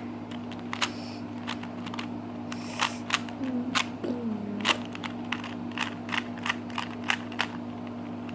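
Rubik's Cube faces being twisted by hand: irregular plastic clicks and snaps, several a second.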